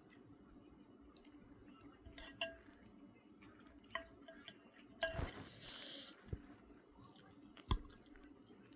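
Faint eating sounds: small clinks of a utensil against a dish and soft chewing, with a brief soft hiss about halfway through.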